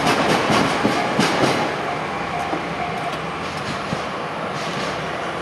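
Freight train wagons rolling over a level crossing, wheels clacking over the rail joints for the first second and a half, then a steadier rolling rumble that slowly fades.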